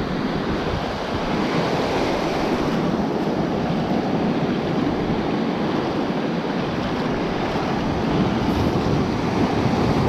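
Ocean surf washing through the foamy shallows in a steady rush, with wind rumbling on the microphone.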